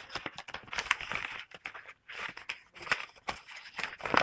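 Paper rustling and crackling as a homemade glued paper box is pulled open, with many small clicks and a short lull about two seconds in.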